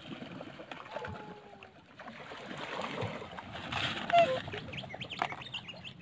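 Water birds (black swans and Eurasian coots) splashing in shallow lake water and calling. A short call falls in pitch about a second in, and a louder, clear falling call comes just after four seconds in. A quick run of short, high calls follows near the end.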